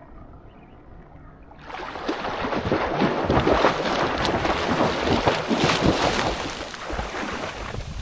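Seawater splashing and sloshing close to the microphone as a person swims through the shallow sea. It starts suddenly about two seconds in and eases off near the end.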